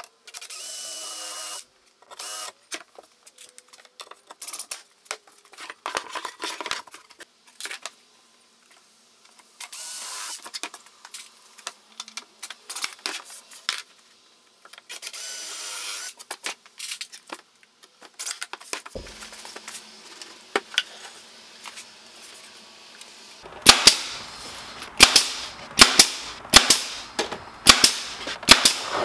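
Cordless drill running in three short bursts, drilling and countersinking screw holes in wood, with scattered knocks and clicks between them. Near the end, a nail gun fires about ten sharp shots, roughly two a second.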